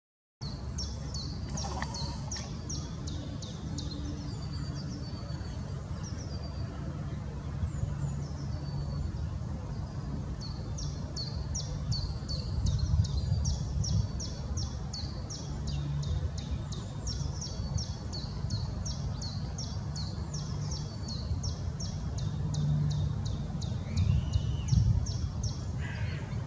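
Small songbirds singing in fast runs of short, high, repeated notes, with a lull in the first third. A steady low rumble lies beneath them.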